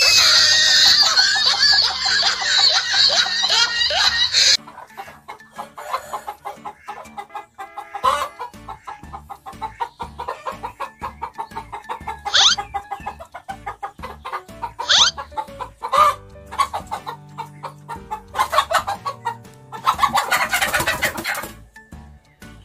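Chickens clucking and squawking over background music, with a loud shrill sound in the first few seconds that cuts off suddenly.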